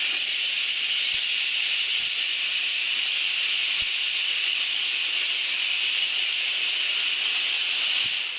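Thousands of wooden Kapla planks collapsing and clattering onto one another and onto a tiled floor, a dense, continuous rattle at an even level that dies away near the end as the pile settles.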